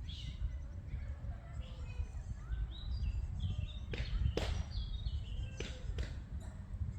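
Outdoor lakeside ambience: a steady low rumble under many short, high bird chirps and calls, with a few sharp clicks about four to six seconds in.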